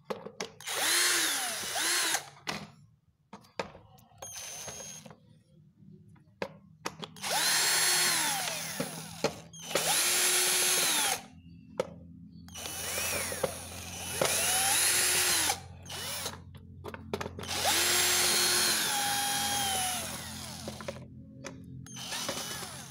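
12-volt cordless electric drill driving a screwdriver bit in about five short bursts, its motor whining up to speed and winding down each time as it backs out screws from a blender's base. The screws are hard to undo.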